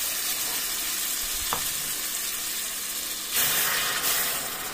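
Chicken broth at a rolling boil in a large stainless-steel pot, a steady bubbling hiss. About three and a half seconds in, a louder splashing rush of liquid lasting under a second as a cup is worked in the broth.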